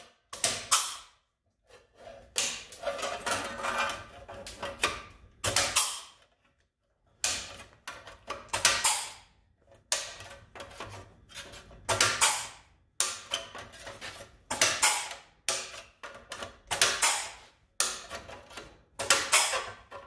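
Handheld pneumatic punch/flange tool punching spot-weld holes along the edge of a sheet-steel repair panel. About twenty short, sharp strokes at roughly one a second, with a pause about six seconds in.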